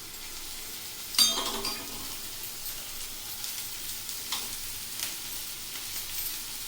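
Dosa frying in oil on a hot tawa: a steady sizzling hiss. A sudden sharp knock about a second in is the loudest moment, with a few lighter taps later.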